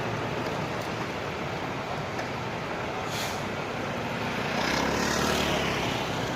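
Roadside traffic noise with a short air-brake hiss about three seconds in, then a heavy vehicle's engine passing, loudest around five seconds in. No telolet horn sounds.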